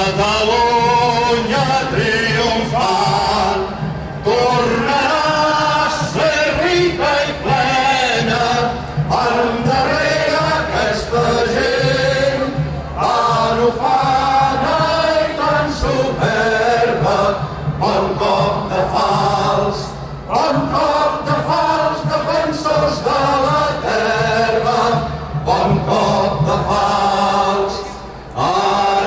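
A crowd of many voices singing together in a sustained, melodic song, with short breaks between phrases.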